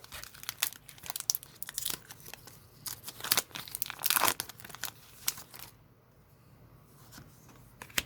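Foil wrapper of a Pokémon TCG booster pack being torn open and crinkled by hand, a run of crackling rips that dies down about six seconds in.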